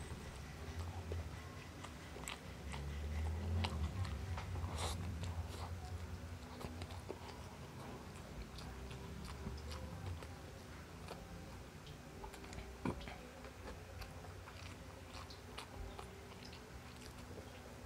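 A person chewing a mouthful of rice and fried food with the mouth close to the microphone: wet chewing with many small sharp clicks and smacks scattered throughout, a little louder a few seconds in.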